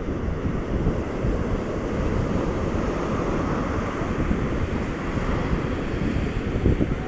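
Ocean surf breaking and washing up a sandy beach, a steady rushing wash that swells in the middle, under heavy wind buffeting on the microphone.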